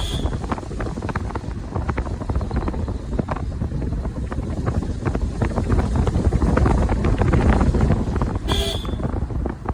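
Wind buffeting the microphone over the steady rush of rain-swollen floodwater. A brief high-pitched sound cuts through near the end.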